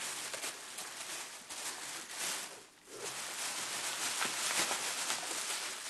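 Plastic wrapping and bubble wrap crinkling and rustling as a packed gift is handled and unwrapped, with a brief lull about halfway through.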